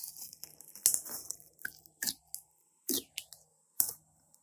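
Thick glossy slime being pressed and poked with fingertips, trapped air pockets popping with sharp wet clicks about five times, with softer squelching crackle between.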